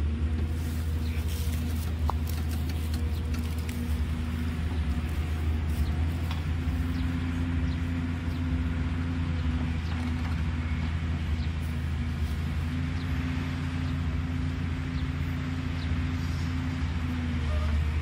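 JCB tracked excavator's diesel engine running steadily under working load as the machine digs and swings, a low even hum with a few faint clicks and knocks on top.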